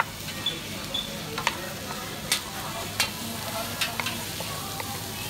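Sliced onion, carrot and cabbage sizzling in a frying pan as they are stir-fried, with sharp knocks of a utensil against the pan every second or so.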